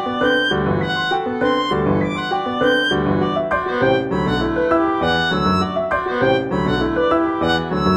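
Instrumental music led by piano, with chords moving in a steady, even pulse.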